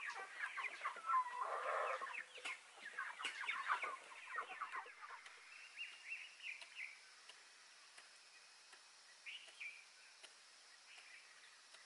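Chickens clucking busily for the first few seconds, then a few fainter, scattered bird calls.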